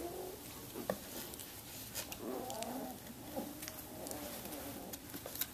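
Samoyed puppies about four weeks old making soft, wavering play growls and grumbles in short spells while wrestling and mouthing each other, with a few faint clicks.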